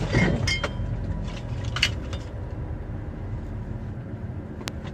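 Truck's diesel engine running at low road speed, heard from inside the cab, with a few knocks and rattles early on and one sharp click near the end.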